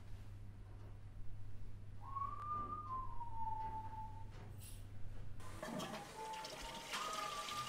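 A single clear whistle-like tone about two seconds long, sliding from a higher note down to a lower held note, over a steady low hum. Near the end the hum gives way to a steady hiss with more faint wavering tones.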